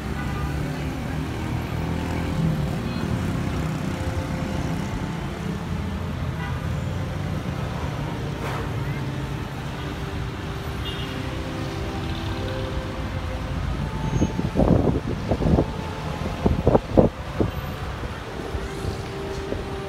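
Steady rumble of city street traffic, with vehicle engines running below. Near the end, a short run of loud low thumps breaks in.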